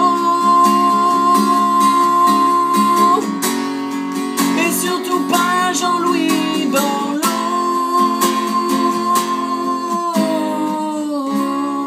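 Acoustic guitar strummed in a steady rhythm, with a man's voice holding long sung notes over it, two of them about three seconds each.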